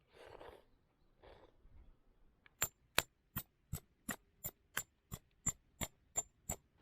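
Two soft rustles, then a steady run of about a dozen sharp, bright knocks, roughly three a second, each with a brief high ring.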